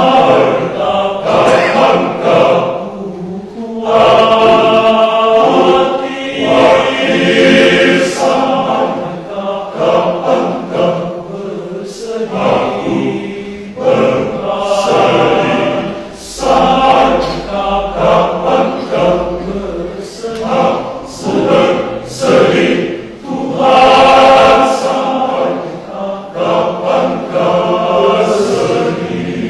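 Men's church choir singing in parts, entering together right at the start and going on in phrases with short breaths between them.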